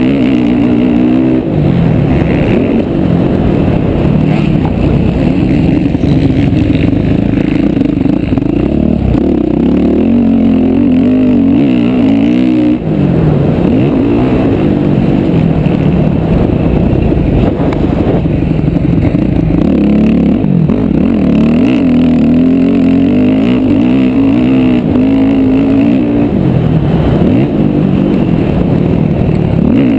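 Motocross bike engine, loud and close from the rider's own helmet camera, revving hard and dropping again and again as the rider works the throttle and gears. The pitch keeps rising and falling, with short drops off the throttle a couple of times.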